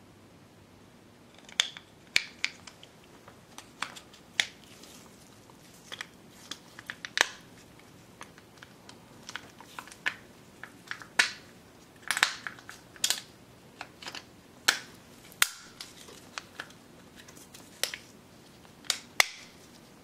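Plastic housing parts of a 2009 Subaru Forester wiper switch being handled and fitted back together by hand: scattered sharp clicks and snaps at irregular intervals, starting about a second and a half in.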